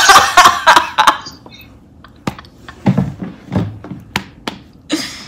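A woman laughing loudly in a burst for about the first second, then several sharp knocks and taps at uneven intervals as she doubles over.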